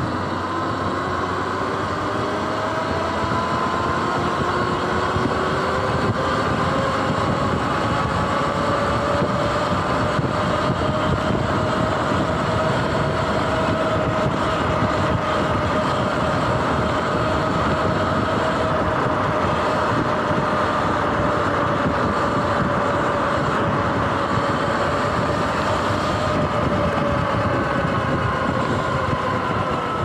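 Sur-Ron X electric dirt bike's motor whining while riding. The whine rises in pitch as the bike speeds up over the first several seconds, holds steady at cruising speed, then drops a little near the end. Under it runs a steady rush of wind and road noise.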